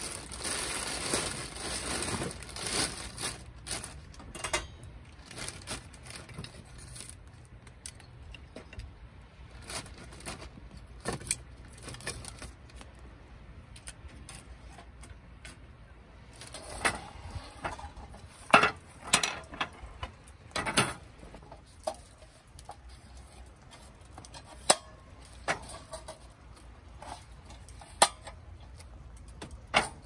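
A plastic bag rustling in the first few seconds, then scattered sharp clinks and knocks as lumps of charcoal are handled and added to a small wood fire in a metal fire stand. A cluster of the loudest clinks comes a little past the middle, with single ones near the end.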